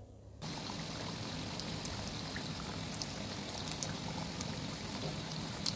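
Dough-wrapped potato-and-egg snacks deep-frying in hot oil: a steady sizzle with scattered small pops, starting about half a second in.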